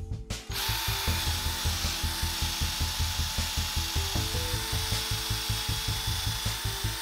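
Power drill with a large bit boring out a broken wooden dowel from the end of a chair post. It runs at a steady speed with a whine and the rasp of the bit cutting wood, starting about half a second in. Background music with a steady beat plays underneath.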